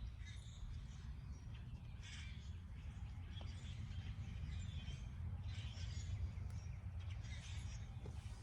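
Birds calling outdoors, short scattered calls, over a steady low rumble.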